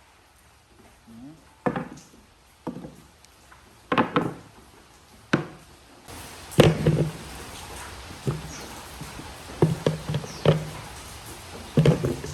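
A series of irregular wooden knocks and thuds, about nine sharp blows roughly a second apart, as work is done on wood. A steady low hiss rises about halfway through.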